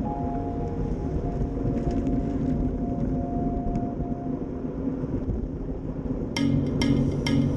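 Wind rushing over a bike-mounted camera's microphone, with road noise, as a road bicycle rides at about 44 km/h. About six seconds in, music with evenly spaced percussive beats starts.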